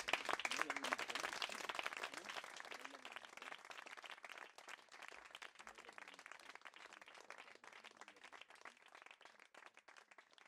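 A small audience applauding by hand. The clapping is loudest at the start and thins out gradually, dying away near the end.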